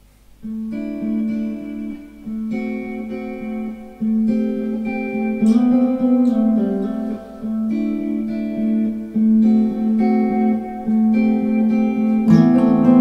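Electric and acoustic guitars playing a picked instrumental passage together, starting about half a second in after a pause, in short phrases with brief breaks. A louder strummed section comes in near the end.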